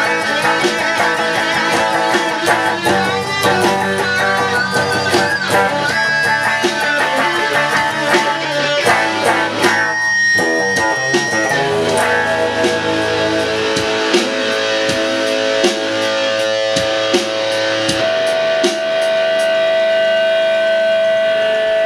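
Two electric guitars jamming, one a Fender Stratocaster: a lead line with string bends and fast picking over strummed rhythm chords. In the last few seconds the playing gives way to a single steady held tone that rings on unbroken.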